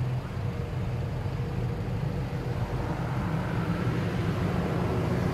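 Steady low motor rumble, with a faint steady hum over it that fades out about halfway through.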